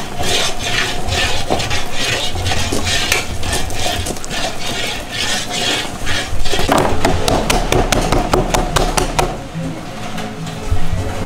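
Utensils repeatedly scraping and knocking while stirring and spreading thick scrapple mush: a ladle working in a cast-iron kettle, and a utensil scraping inside a plastic tub.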